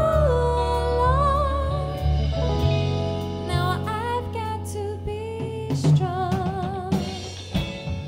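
Live band music: a woman sings a long-held, wavering melody over sustained chords, with drum-kit hits coming in during the second half.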